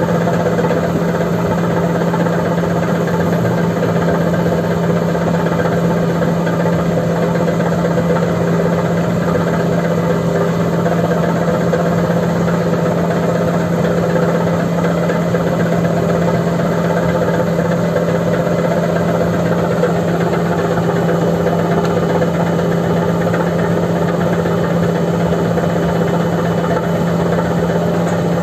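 Heavy diesel engine running steadily at a constant speed with a deep, even hum.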